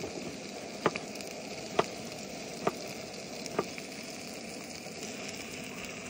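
Eggplant and bell pepper frying in a pan over a wood fire pit: a steady sizzle, with four sharp clicks evenly spaced about a second apart in the first four seconds.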